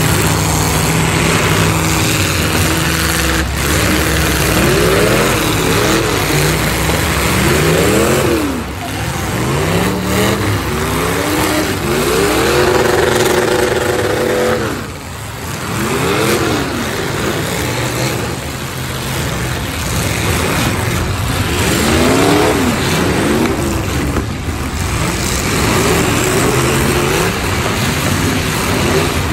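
Several demolition derby cars' engines revving hard, their pitch rising and falling over and over as they accelerate and ram each other, with a sharp crash about three seconds in.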